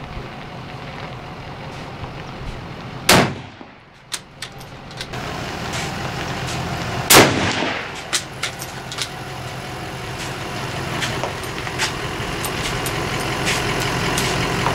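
Two rifle shots from an Arisaka Type 99 bolt-action rifle in 7.7 mm Japanese, about three seconds in and again about four seconds later, over a steady background rush with a few light clicks between them.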